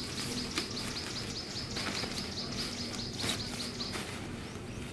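Nylon tent fabric rustling and a tent pole clicking as a dome tent is handled and taken down. Behind it runs a rapid series of short high chirps, about five a second, that stops about four seconds in.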